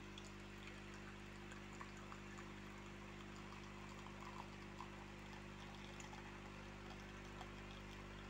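Rohnson 20-bar espresso machine pulling a shot: its pump hums steadily and faintly while espresso trickles and drips into a glass cup.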